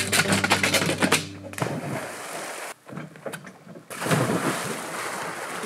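Quick footfalls knocking on a wooden dock, then a splash as a man jumps into a lake, with water splashing again from about four seconds in as he swims. Background guitar music ends about a second and a half in.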